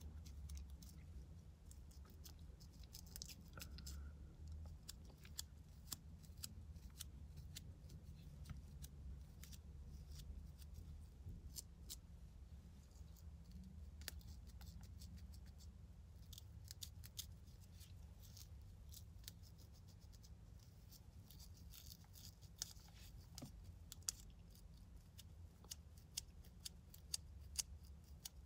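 A fine-toothed comb scratching through the hair and across the scalp to loosen dandruff flakes, close to the microphone. It makes a dry crackle of many small, sharp, irregular clicks, denser near the end, over a low steady hum.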